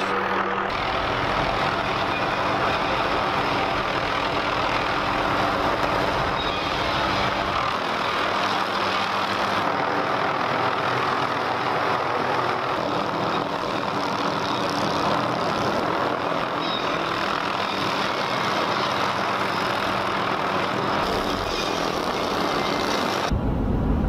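Helicopter hovering overhead, its engine and rotor giving a steady, loud running noise; it is working a suspended tree-trimming saw on a dead tree. About a second before the end this gives way to the low rumble of a vehicle cabin on the road.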